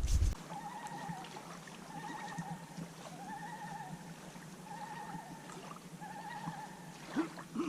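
Common loons giving their wavering tremolo call over the lake, one quavering call after another about once a second.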